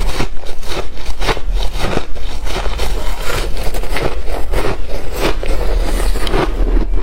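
Close-miked crunching of freezer frost ice: a dense, continuous run of crisp crunches, several a second.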